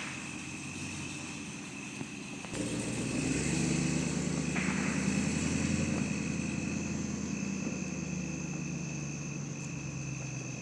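A car driving past, its engine and tyre noise coming in about two and a half seconds in, loudest in the middle, then slowly fading away.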